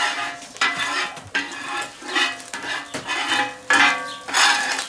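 Metal spatula scraping and pushing egg across a hot steel fire plate in repeated strokes, about one to two a second, over scrambled ostrich egg frying and sizzling on the plate.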